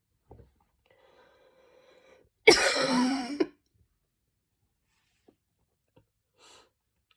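A woman's drawn-out breath in with a faint whistle, then one loud barking cough lasting about a second as she tries to bring up mucus. A short faint breath follows near the end.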